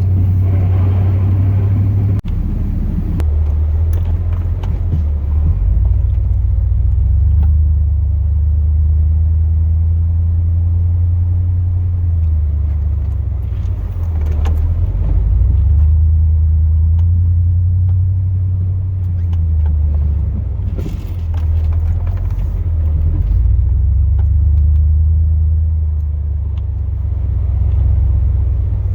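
2002 Chevrolet Silverado's 8.1-litre big-block V8 running as the truck drives, a loud low drone whose pitch drops and climbs again several times as the engine speeds up and slows down.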